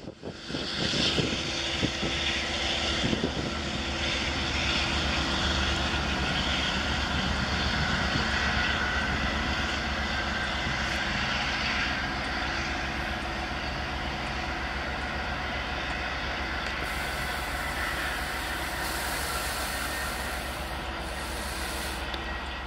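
Diesel locomotive engine of a departing push-pull train running steadily under load, with rail noise, as a DM30AC locomotive pushes the LIRR bilevel train away.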